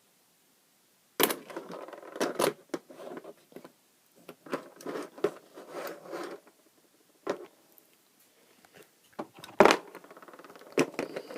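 A Lego model being handled and turned around, its plastic parts giving irregular clicks, rattles and knocks, with a few sharper knocks among them.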